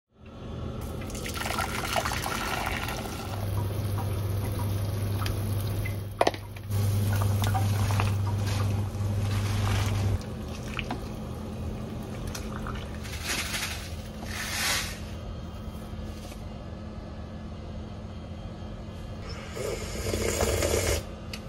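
Water bubbling in a pot on an induction hob as spinach is pushed down into it, over a steady low hum.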